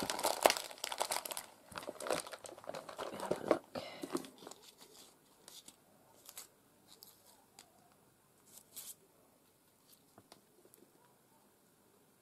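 Clear plastic bag crinkling as hands dig into it for paper flowers, dense for the first four seconds or so. After that, only a few light rustles and taps as paper pieces are handled.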